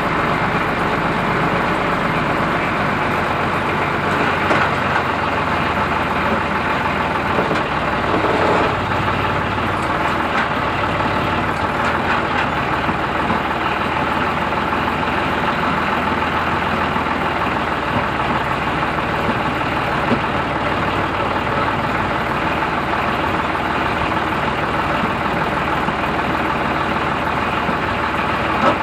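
Ford 3600 tractor's engine running steadily, driving the Krpan forestry winch as it hauls a log in on its cable.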